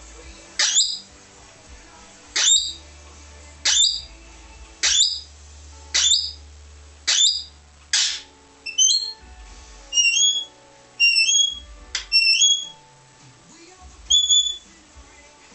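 Australian king parrot calling: a series of about a dozen sharp, rising calls, roughly one a second, mixed with short whistled notes that step up in pitch.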